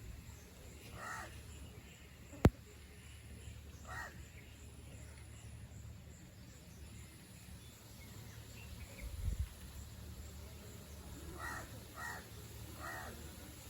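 Birds calling five times, three in quick succession near the end, over a steady low rush of air. A sharp click comes about two and a half seconds in, and a dull low thump around nine seconds.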